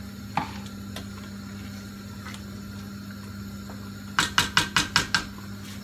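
Wooden spoon stirring curry in a metal cooking pot, knocking against the pot about eight times in quick succession about four seconds in. A steady low hum runs underneath.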